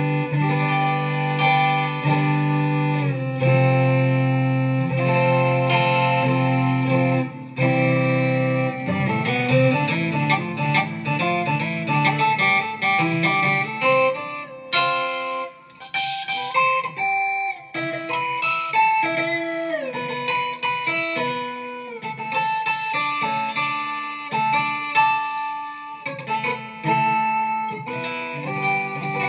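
Guitar played through a BOSS SY-200 synthesizer pedal, giving synth tones. It holds sustained chords at first, then plays quicker runs of notes from about eight seconds in, with some notes sliding in pitch.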